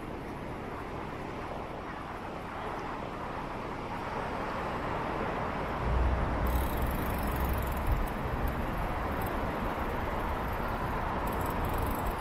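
Steady city traffic noise heard from a moving bicycle, growing a little louder, with a low rumble for a couple of seconds about halfway through.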